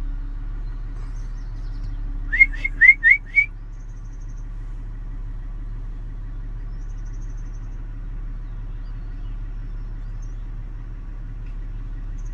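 A steady low hum of a vehicle idling, and about two seconds in a quick run of five short rising whistled notes, the loudest sound.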